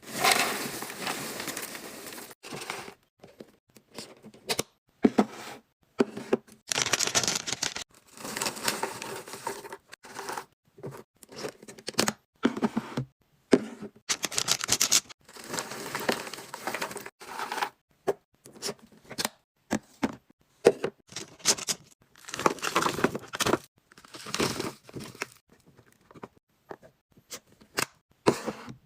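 Plastic food packaging crinkling and tearing, with sharp clicks and knocks of containers being handled while a fridge is restocked. It comes in many short, separate bursts with brief silent gaps between them.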